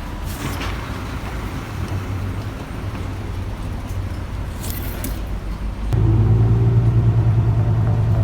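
Steady low rumble of a running vehicle, which becomes suddenly louder about six seconds in, with a steady low hum.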